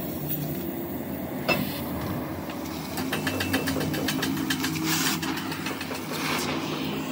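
Oxy-fuel cutting torch cutting through steel plate: a hiss with rapid crackling and popping of sparks from about three seconds in. A steady low machine hum runs beneath it.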